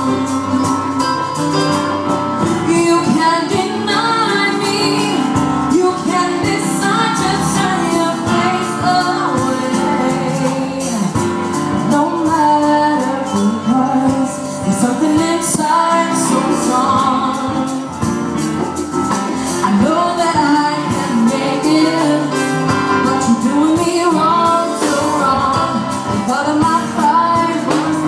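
A teenage girl singing into a microphone with a live band of keyboard and drums, her voice bending and holding long notes over a steady beat.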